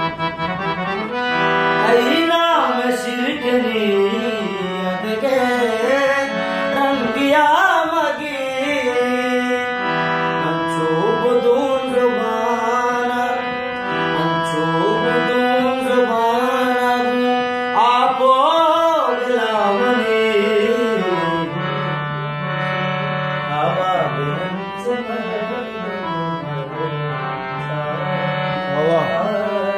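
Music: sustained chords under a melody line that slides up and down in a few long phrases, with light percussion strikes.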